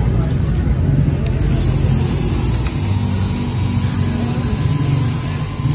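Manual engraving machine's spindle running steadily as its cutter engraves a black plastic tag plate, a low motor hum with a high hiss that comes in about a second in.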